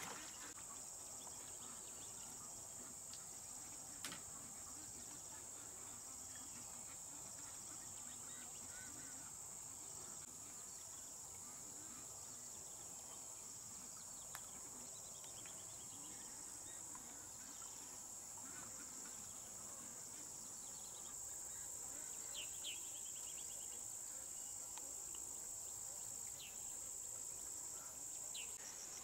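Steady high-pitched insect chorus, growing a little louder about three quarters of the way through, with a few faint clicks.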